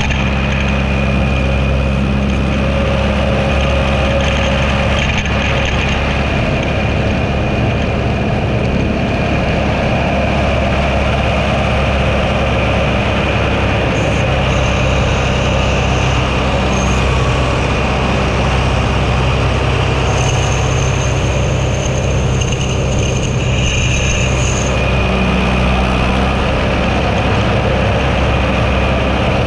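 Roadside-mowing tractor's engine running at a steady speed, with a faint high whine coming and going in the middle.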